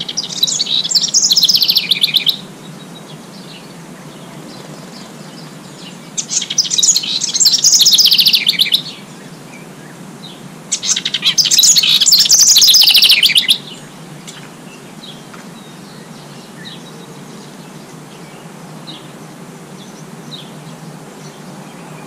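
Small songbird singing three fast, jumbled song phrases, each about two and a half seconds long and falling in pitch toward its end, a few seconds apart; faint scattered chirps follow.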